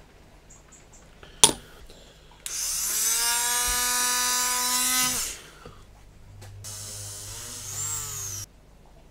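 A sharp click about a second and a half in, then a handheld rotary tool spins up, runs at speed for about three seconds and winds down. A second, quieter run follows, its pitch dipping and rising as it grinds the styrene plastic part.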